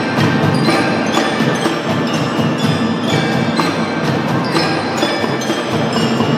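Children's drum band playing a tune, carried by mallet percussion with a bright, bell-like ring over struck percussion, with many notes sounding together and sharp attacks at a steady pulse.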